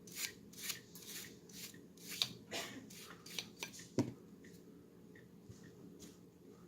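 Cleaning brush scrubbing a Glock pistol part in quick back-and-forth strokes, about three a second, knocking off powder residue. A sharp click about four seconds in, after which the strokes become fainter and more scattered.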